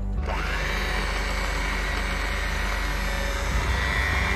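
Electric hand mixer beating cake batter. Its motor comes up to speed just after the start with a rising whine, then runs steadily.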